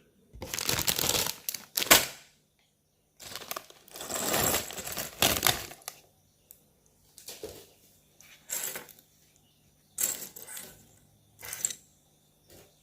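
Small plastic Lego-style pieces rattling and clicking as they are handled and fitted together, in irregular bursts with short silent gaps.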